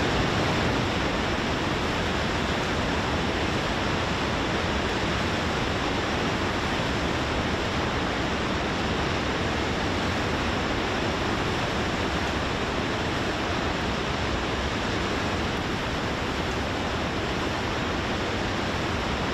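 Steady rushing of fast, churning floodwater from the swollen Ebro river.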